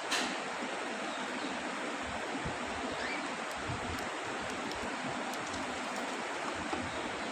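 Steady rushing hiss with a sharp click at the very start and a faint short chirp about three seconds in.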